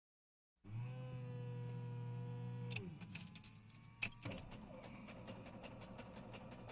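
Pre-start sounds inside a light propeller plane's cockpit: an electrical hum with a steady whine comes on and stops after about two seconds. Several sharp switch clicks follow, the loudest about four seconds in, and then a faint, even, rapid ticking.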